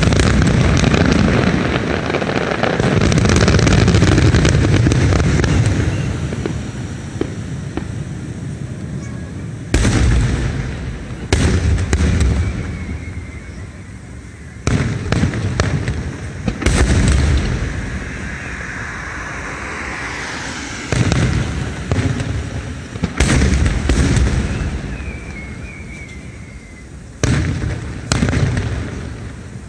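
Fireworks display: aerial shells bursting with loud booms and crackle, a dense barrage over the first few seconds, then separate bursts every few seconds, each trailing off in a rumbling echo.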